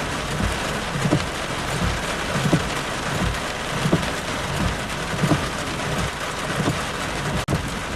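Heavy rain falling on a car: a steady hiss with many scattered drop taps.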